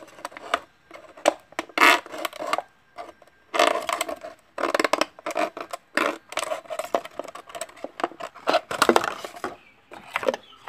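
Thin plastic water bottle crinkling and crackling in irregular bursts as it is twisted, crushed and cut apart by hand.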